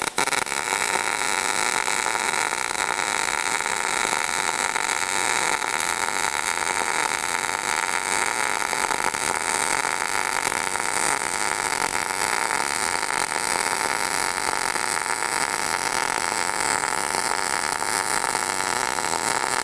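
MIG welding arc on steel plate: short-circuit transfer with .030 ER70S-6 wire under 75/25 argon-CO2 gas at 16 volts, a steady, even crackle that starts right at the beginning. This is the uphill cap pass in a beveled 3/16-inch groove.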